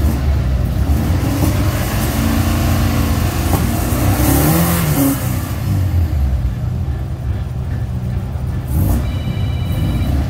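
Alfa Romeo 33 race car's engine running at the start line, with a brief rev up and back down around the middle. A steady electronic beep sounds for about a second near the end.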